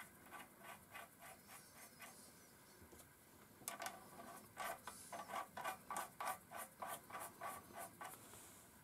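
Steel nuts being spun by hand onto the threaded tool-post stud of a mini lathe's compound slide. The thread makes faint, rhythmic ticks, about three a second, with a short pause partway through.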